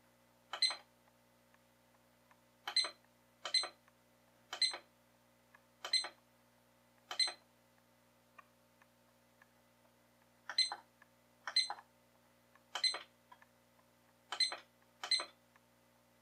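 Short high electronic beeps from a DreamSky portable alarm clock's buttons, eleven key presses at an uneven pace with a pause of about three seconds midway, as its time and date settings are stepped through.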